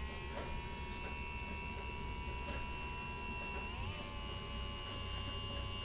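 Small 20-turn brushed electric motor with a cooling fan, running unloaded off a bench power supply at about 2 to 3 volts to break in its brushes: a steady whine and hum. Its pitch rises slightly about four seconds in.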